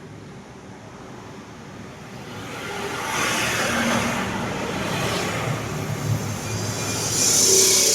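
Road traffic: a vehicle passing, its rushing noise swelling from about two seconds in and loudest near the end.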